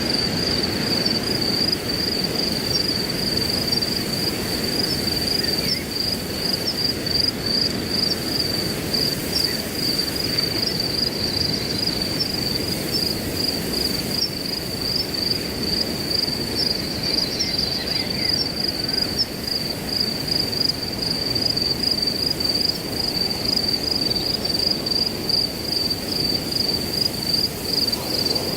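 Crickets chirping in a steady, rapid pulsing trill over a low, continuous rush of wind, with a few faint bird chirps now and then.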